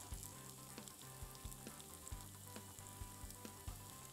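Faint sizzling of a kunafa base frying in a metal pan on the stove, turned down to low heat so the cheese on top warms from below.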